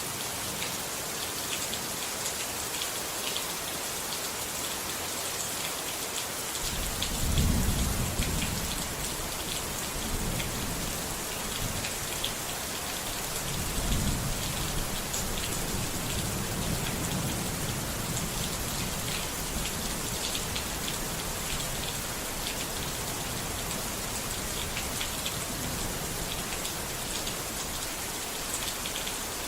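Steady rain falling, with fine drop patter, and thunder rumbling low twice: a roll building about seven seconds in and another about fourteen seconds in.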